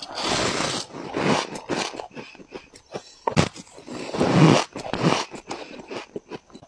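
Freezer frost being bitten and chewed close to the microphone: soft, squeaky crunching in uneven stretches, the loudest about four seconds in, with small sharp clicks between.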